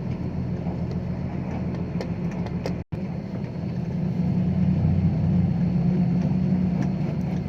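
Diesel engine of a six-wheel dump truck laden with soil, running steadily under load, growing louder about four seconds in. The sound cuts out completely for a split second just under three seconds in.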